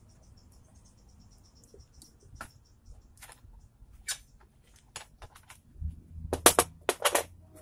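Scattered light clicks and taps as tools and small metal pieces are handled on a metal-topped workbench. Near the end comes a quick run of sharper, louder clacks as the 3D-printed bullet mould is gripped in pliers.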